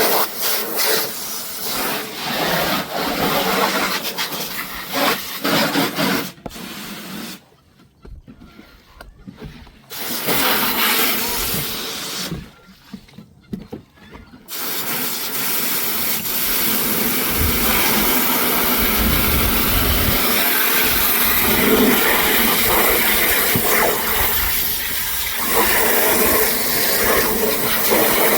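Water spraying in short on-and-off bursts, then running steadily from about halfway through.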